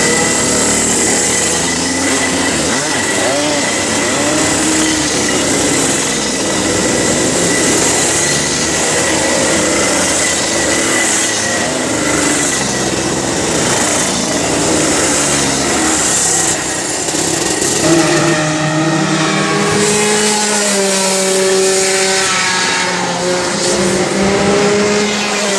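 Several Rotax Max 125 cc two-stroke kart engines running together, a dense overlapping buzz as the karts pull away. In the last several seconds a few separate engine notes stand out, stepping up and down in pitch.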